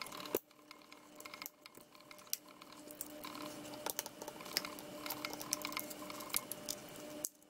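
Flathead screwdriver prying around the glued seam of a Tile Sport tracker's shell: irregular small clicks, ticks and scrapes as the glue gives, the sharpest just after the start, over a faint steady hum.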